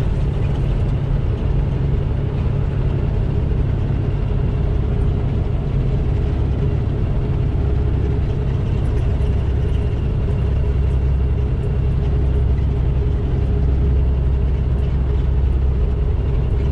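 Semi truck's diesel engine running at steady highway speed with tyre and road noise, heard from inside the cab as an even low drone.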